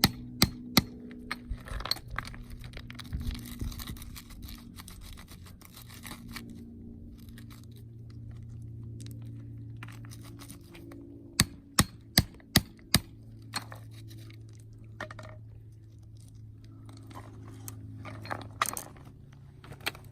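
Hammer blows on a plastic conduit pipe, driving it into the ground to open a hole. There are two blows just after the start, then scraping and working of the pipe in the soil, then a quick run of five blows about eleven to thirteen seconds in.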